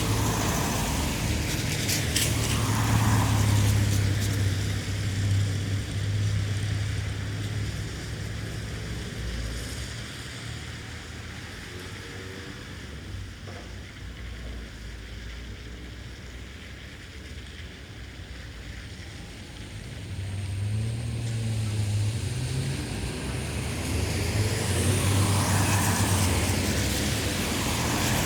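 Town traffic on a wet road: cars pass with engine rumble and tyre hiss, loud at first, fading through the middle and building again near the end as more vehicles come by.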